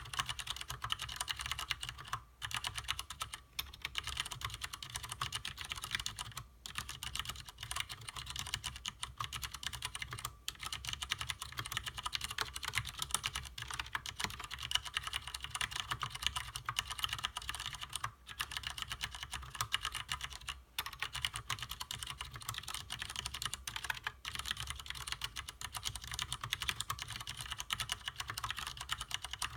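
Typing on a Leopold FC750R mechanical keyboard with stock Cherry MX Clear tactile, non-clicky switches: a fast, continuous run of keystrokes with a few short pauses.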